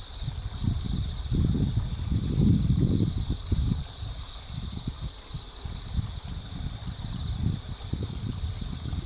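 Uneven low rumble of wind buffeting the microphone, strongest in the first few seconds, over a steady high trilling chorus of crickets and other insects, with a few faint short high chirps.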